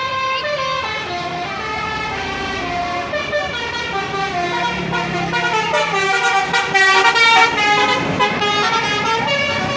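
Bus telolet horn, a multi-note air horn, playing a tune of stepping notes. It grows louder and busiest about seven seconds in.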